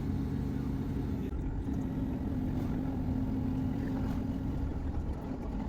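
Class 158 diesel multiple unit running, heard from inside the carriage: a steady low engine hum over rail and running rumble.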